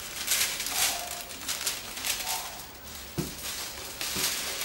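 Rustling and a few light knocks from handling as gingerbread dough is cut out with a plastic cookie cutter on floured baking paper.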